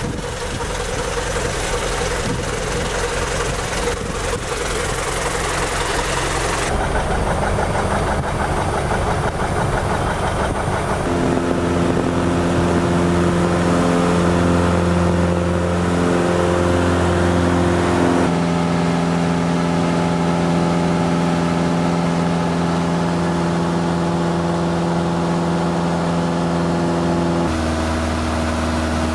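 Cessna 172 floatplane's engine and propeller heard from inside the cabin as the plane runs on the water. A rushing noise lies over the engine for the first several seconds, then a steady droning engine note takes over and shifts in pitch abruptly a couple of times.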